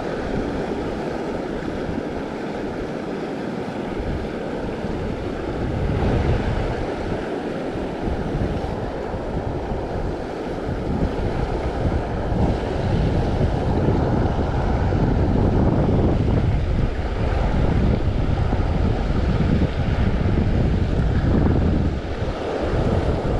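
Creek water flowing steadily, with wind buffeting the microphone in uneven gusts that grow heavier about halfway through.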